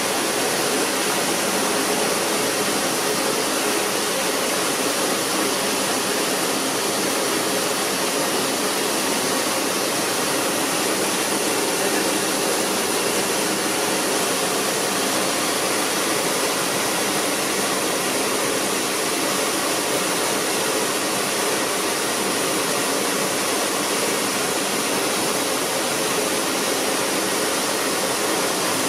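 Rice mill machinery, including a rice optical sorter, running steadily: a constant hiss and rush with a faint hum underneath as milled rice streams through the chutes.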